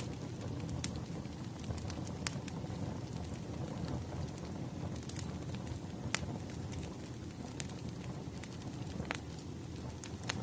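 Wood fire crackling: a steady low rumble with sharp pops and snaps at irregular intervals.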